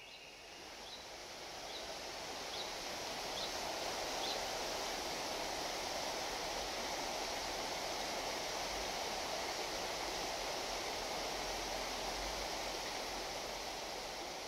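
Steady rushing of a flowing river, fading in over the first couple of seconds, with a bird giving six short rising chirps less than a second apart in the first four seconds.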